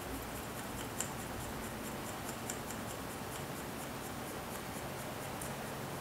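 Paper quilling strip being wound tight on a slotted quilling tool: rapid faint crisp ticks as the paper rolls, with one sharper click about a second in, over a low steady hiss.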